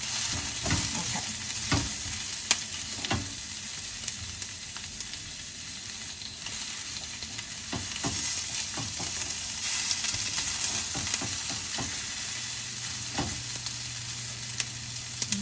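Sliced onions sizzling in avocado oil in a stainless steel sauté pan over medium-high heat, starting to caramelize. A spatula knocks and scrapes against the pan now and then as they are stirred.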